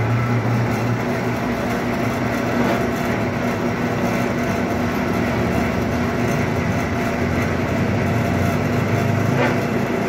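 Electric-motor-driven pan mortar mixer running empty: a steady motor hum as the rebar paddles turn in the drum, with a faint knock or two.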